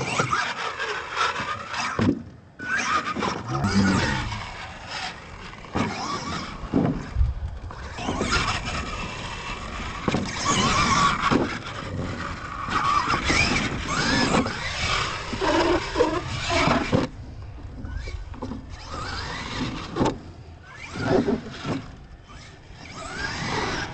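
RC monster truck motor whining as it revs up and down in repeated rising and falling bursts, with sharp thumps and knocks as the truck lands, hits ramps and tumbles on the dirt.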